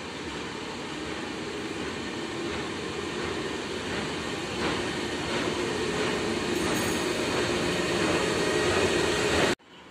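Freight train of car-transporter wagons, hauled by a Siemens Vectron electric locomotive, rolling slowly into the station and growing steadily louder. The sound cuts off suddenly near the end.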